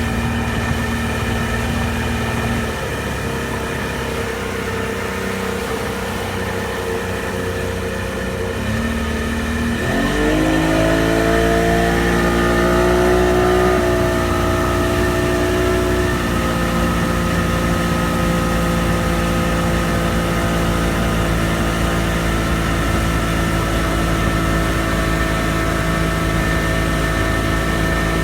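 1989 Bayliner boat engine running, not yet tuned up. It runs steadily at a low speed, revs up about ten seconds in, and holds there at a higher steady speed.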